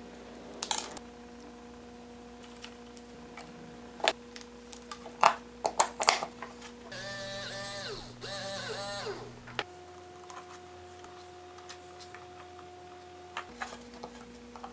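A few sharp clicks and snaps of hand tools working wire, then a small 63 rpm spur gear motor whirring for about two and a half seconds with a wavering whine, briefly dipping once, as it is run off the battery pack to check which way it spins. A faint steady hum sits underneath throughout.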